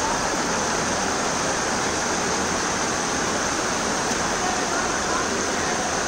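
Heavy rain and fast-flowing floodwater rushing and churning, a steady, even hiss.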